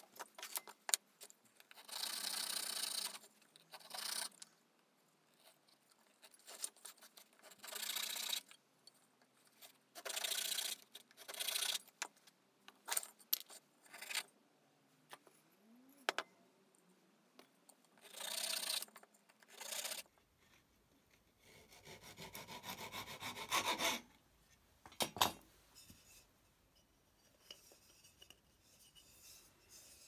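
Small hand saw cutting a small piece of wood in short bouts of rasping strokes, each a second or two long. Sharp knocks and clicks of the wood and tools being handled come between the bouts.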